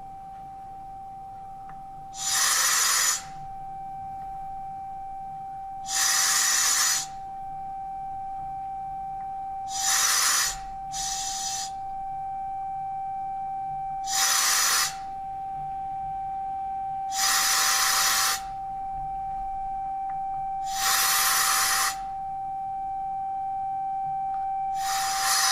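A loudspeaker sealed in a bell jar plays a steady high tone that grows gradually louder as air is let back into the evacuated jar. Short bursts of hiss, air rushing in through the valve, come about every four seconds.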